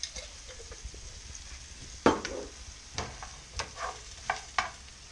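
Shrimp and capers sizzling in a skillet as they are stirred, with a series of sharp clinks and knocks against the pan from about two seconds in.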